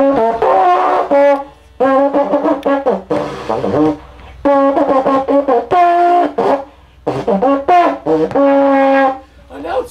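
A long horn with a flared bell blown in about five loud held phrases with short breaks between them, the pitch stepping between a few notes.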